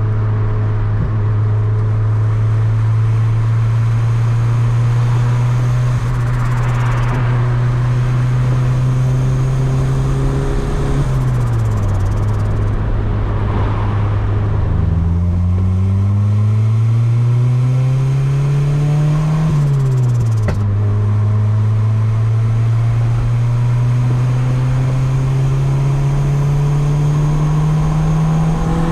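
Turbocharged Honda D16Y8 four-cylinder engine running under way in a Civic. Its note climbs slowly, drops sharply twice (about a third and about two thirds of the way in), then climbs again.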